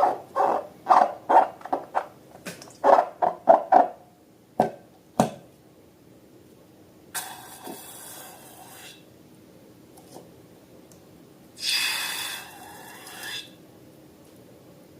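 Slime being squeezed and worked by hand, squelching rapidly about two to three times a second for several seconds. Then two sharp clicks and two longer hissing rushes.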